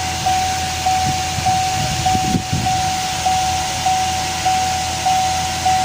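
Chevrolet Camaro's warning chime dinging over and over, about one and a half chimes a second, each ding fading before the next, over a steady hiss.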